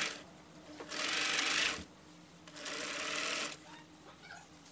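Domestic sewing machine running a straight stitch in two short runs of about a second each, stopping in between.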